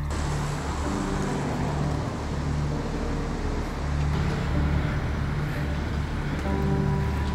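Steady road traffic noise from cars passing on a busy road, with a low droning music track underneath.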